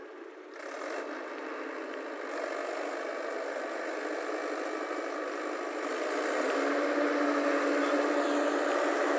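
Mahindra tractor's diesel engine running under load as it drives through deep mud on cage wheels, getting steadily louder.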